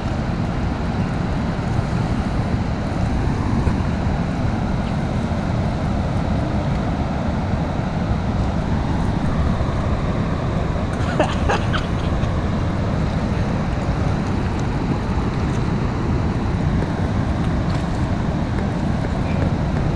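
Steady rush of water pouring through the open spillway gates of Kaw Dam into the tailwater, with wind on the microphone. A short pitched sound cuts in briefly about eleven seconds in.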